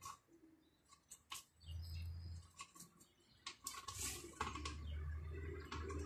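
Faint, scattered short chirps and clicks from a caged rosy-faced lovebird, growing busier in the second half, over an intermittent low hum.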